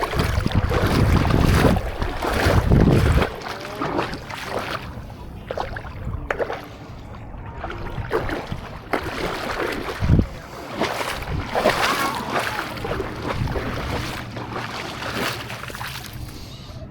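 Wind rumbling on the microphone for the first few seconds, with irregular splashing and sloshing of water.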